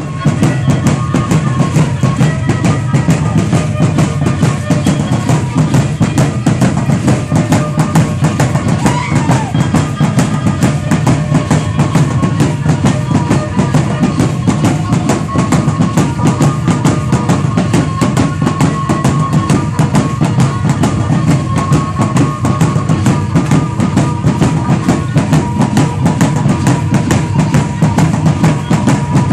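Fast, dense drumming on large upright huehuetl drums for Aztec dance, the beats coming evenly without a break, with a few faint held tones above the drums.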